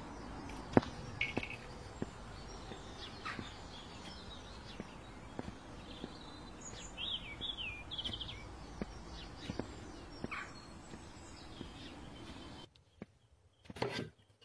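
Faint outdoor ambience with birds chirping now and then, including a few quick falling chirps, and several light clicks. The ambience cuts off abruptly near the end, followed by a brief knock or clatter.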